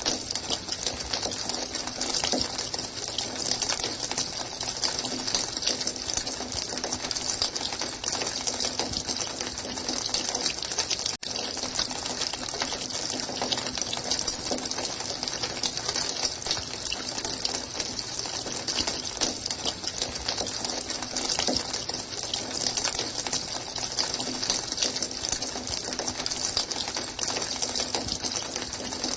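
Running water: a steady, even rush of water with no change in pace, broken only by a momentary drop about eleven seconds in.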